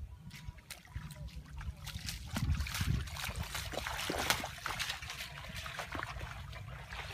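Feet wading and splashing through shallow, muddy floodwater, with the water sloshing and scattered small clicks. The splashing is loudest around the middle.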